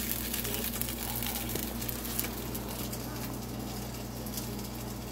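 Pizza slice frying in a pan, sizzling with a steady fine crackle, over a steady low hum.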